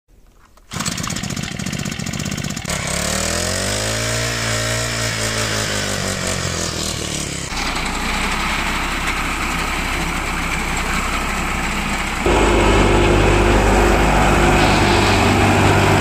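A series of farm machine sounds with abrupt cuts between them. First a small single-cylinder four-stroke brush cutter engine starts and runs, then revs up and back down. Then a tractor-driven reaper runs through the wheat, and about twelve seconds in a belt-driven wheat thresher runs with a louder steady hum.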